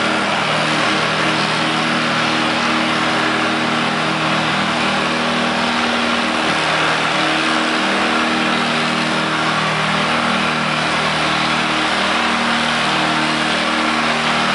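Old Farmall tractor's engine running hard and steady under full load while it drags a weight-transfer sled in a tractor pull.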